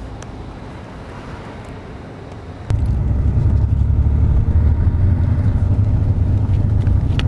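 Quiet street ambience, then about two and a half seconds in, a sudden cut to a loud, steady low rumble of a car on the move, heard from inside the cabin.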